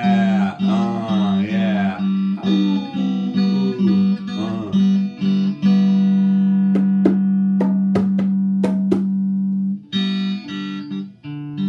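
Stratocaster-style electric guitar playing a repeated, pulsing chord pattern, then one chord left ringing for about four seconds, with a few sharp clicks over the held chord.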